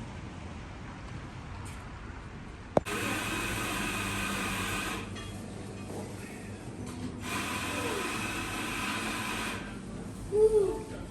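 A small electric motor whirring in two bursts of about two seconds each, the first starting right after a sharp click. A short, louder sound near the end.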